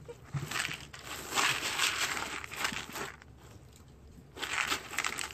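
Dry beans rattling and shifting in a plastic tub as a ferret burrows and digs through them, in two spells of clattering with a short lull a little past three seconds in.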